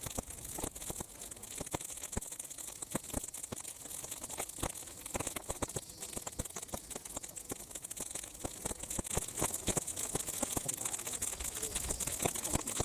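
Sun-dried weeds burning in an open fire, crackling with frequent irregular pops over a steady high-pitched hiss.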